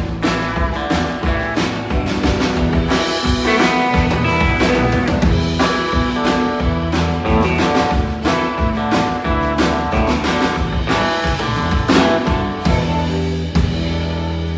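Live country band playing an instrumental passage on acoustic and electric guitars with a drum kit, with no singing; near the end the playing settles onto long held notes as the song closes.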